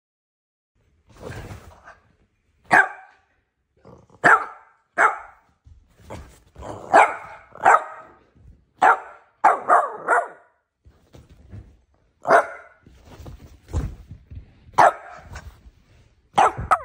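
Boston Terrier puppy play barking: about a dozen short, sharp barks at irregular intervals, some in quick pairs, starting about a second in. A dull thump comes between barks about two-thirds of the way through.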